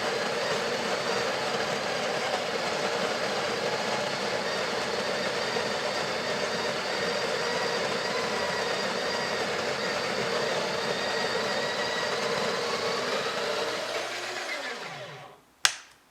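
Breville Barista Express's built-in conical burr grinder running steadily while grinding a dose of coffee beans. About 14 seconds in it winds down, with the pitch falling as the motor stops. A sharp knock follows near the end.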